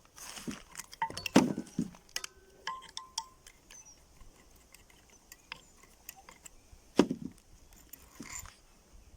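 Metal parts of a refrigerator compressor being handled: scattered clinks and knocks, some ringing briefly, with heavier knocks about a second and a half in and again about seven seconds in.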